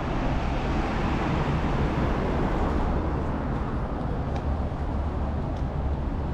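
Steady road traffic noise: a continuous hiss over a low rumble.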